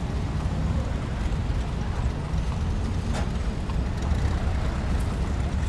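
Steady low rumble of street traffic heard from an open carriage moving along a city street, with one faint click about three seconds in.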